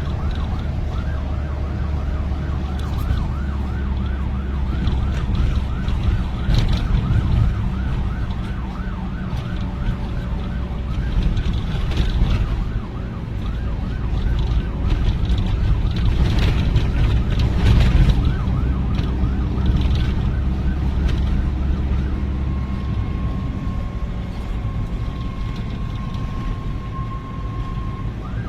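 Vietnamese traffic police siren yelping, its pitch sweeping up again and again several times a second, over a loud low rumble of engines. In the last part the sweeps give way to a steady held tone, and the sweeps start again at the very end.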